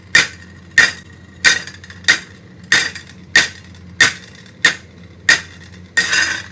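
Knuckles knocking on an iron box in a steady rhythm, about ten knocks at roughly one and a half per second, each a sharp metallic rap with a short ring.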